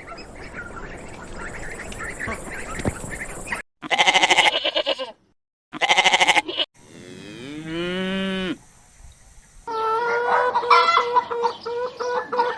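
Sheep bleating in a string of short clips cut together. Two loud wavering bleats come about four and six seconds in, then a longer bleat, then several overlapping bleats near the end.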